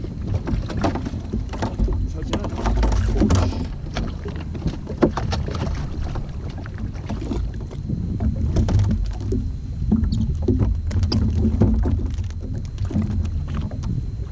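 Water lapping and knocking against the hull of a jet ski drifting at sea, with clicks and rattles of fishing tackle being handled.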